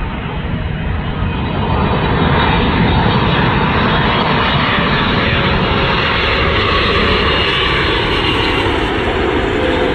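Jet engines of a British Airways Boeing 777 on low final approach with its landing gear down: a loud roar that swells about a second and a half in, with a whine that slowly falls in pitch.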